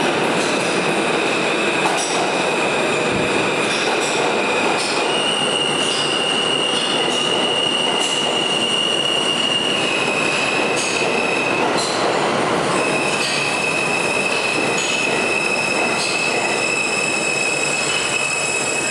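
New York City subway train pulling into an underground station, its cars rolling past close by with a loud, steady rumble. Over it runs a high squeal that holds one pitch and then shifts to another several times.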